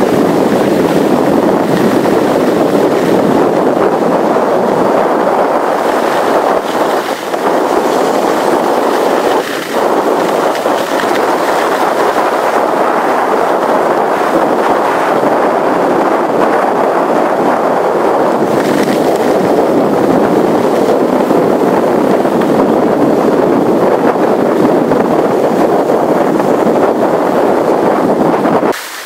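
Steady loud rushing of wind on the microphone mixed with skis sliding over snow as the filming skier moves down the slope; it cuts off abruptly just before the end.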